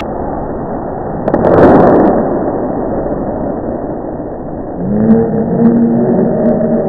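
Muffled ice hockey play heard from behind the goal. A loud scraping burst of skates and sticks on the ice at the net comes about a second and a half in. From about five seconds, players' voices shout.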